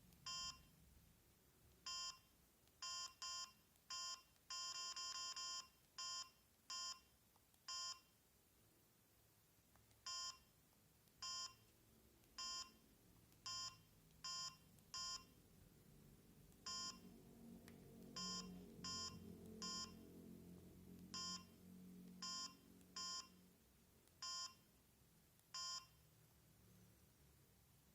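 Key-press beeps from a Samsung SGH-M600 mobile phone as its buttons are pressed to move through the menus. There are about two dozen short, identical beeps at irregular intervals, and one held for about a second around five seconds in.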